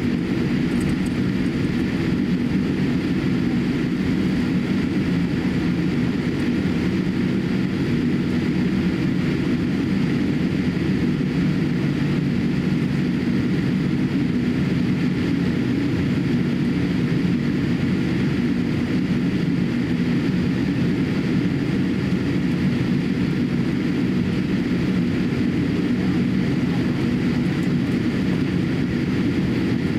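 Steady cabin noise inside a Boeing 787-8 while it taxis. Its GEnx-1B engines are at low taxi thrust, heard as an even low hum with a faint hiss above it that holds unchanged throughout.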